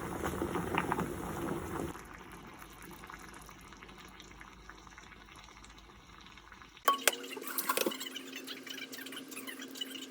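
Kitchen cooking sounds: liquid sounds with light clinks of utensils and dishes. About seven seconds in the sound changes abruptly to a steady low hum with a few sharp clicks.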